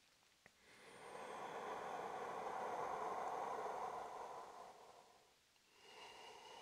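Slow, deep breathing during a held seated forward bend: one long breath swells and fades over about four seconds, and the next begins near the end.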